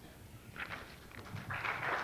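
Lull in a conference hall, then audience applause breaks out about a second and a half in.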